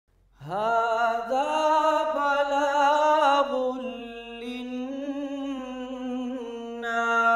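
An unaccompanied voice singing long, held, wordless notes with a wavering pitch, starting about half a second in: the opening of a vocal nasheed-style intro.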